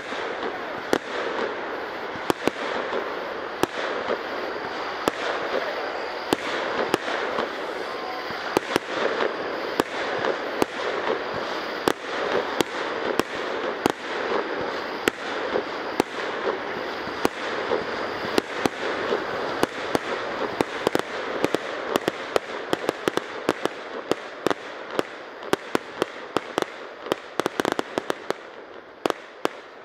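Aerial fireworks bursting: a steady run of sharp bangs and crackles over a continuous noisy background. The reports come faster and closer together in the last third.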